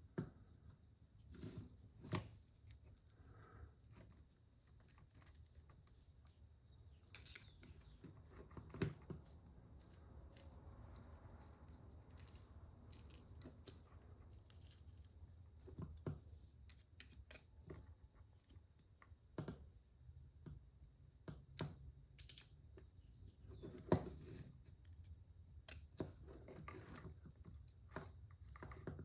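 Scattered light clicks and taps of small plastic parts and tools being handled while an RC car is worked on, a few sharper knocks among them, over a faint low hum.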